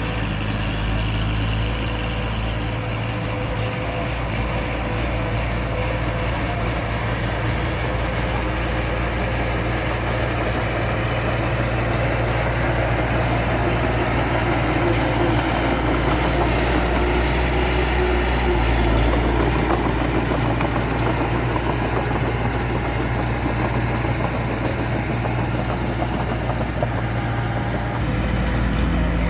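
Komatsu D20P bulldozer's diesel engine running steadily as the dozer pushes soil, a continuous low drone.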